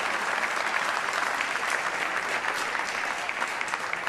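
An audience applauding steadily, a dense patter of many hands clapping.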